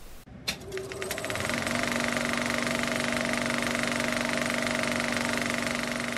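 Old film projector sound effect: about half a second in, a few clicks speed up into a fast, steady clatter with a constant motor hum.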